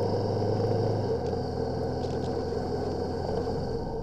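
Honda CB500X parallel-twin engine running as the motorcycle rides along, with steady wind and road rush over it. The engine note drops a little about a second in.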